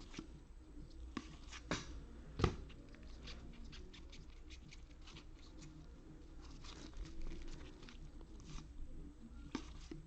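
Trading cards being handled and flipped through by hand: soft rustling and light clicks, with two sharper clicks about two seconds in.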